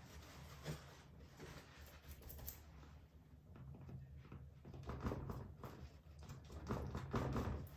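Sponge dabbing acrylic paint onto a canvas: soft, irregular pats and scuffs, in a quicker cluster around the middle and again near the end, over a faint low hum.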